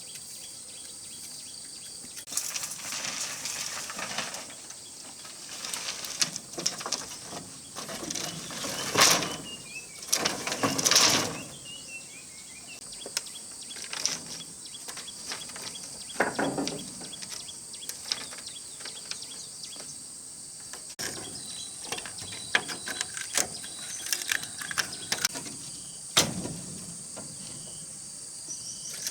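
Crickets chirping in a steady high drone, with a few bird chirps. Over them come scattered clicks and knocks and several louder rustles, the loudest about nine and eleven seconds in.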